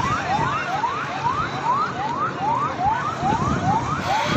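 Emergency-vehicle siren wailing in quick rising sweeps, about three a second, over a background of crowd noise.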